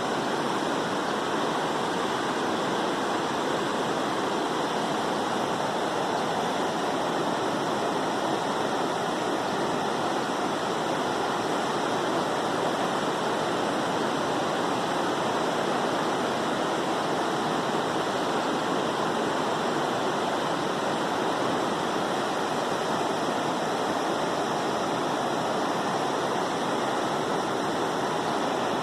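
A river in flood, its fast water rushing in a steady, unbroken wash of noise.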